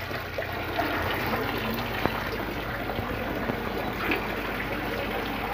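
Water trickling and pouring steadily, with small splashy clicks and faint voices in the background.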